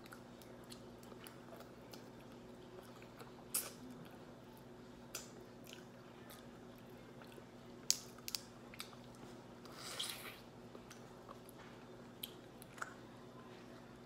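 Scattered sharp clicks and crackles of cooked crab shell being picked apart by hand, with some quiet chewing. There is a longer crackle about ten seconds in.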